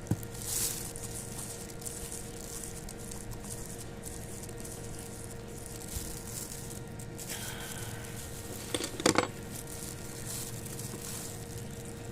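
Small metal parts of a bicycle pedal being handled on a workbench: a few sharp metallic clicks and clinks about nine seconds in, over a steady faint hum.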